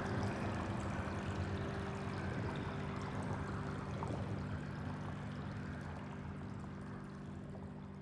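Closing background music: a sustained chord held over a noisy wash, slowly fading out toward the end.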